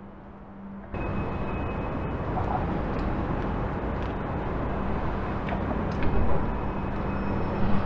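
Steady outdoor rumble of traffic and container-port machinery with a constant low hum, coming in abruptly about a second in.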